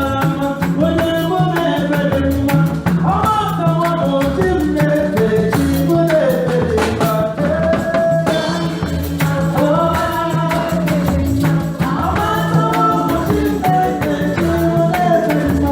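Gospel praise music: voices singing a melody over a steady low bass line and a busy, even rattling percussion beat.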